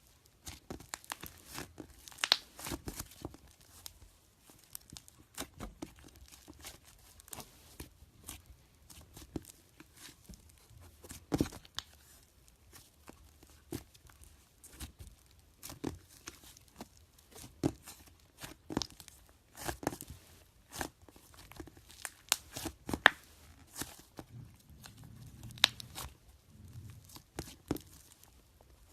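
Slime being squeezed and played with, giving a run of irregular crackles and pops, a few of them much louder than the rest.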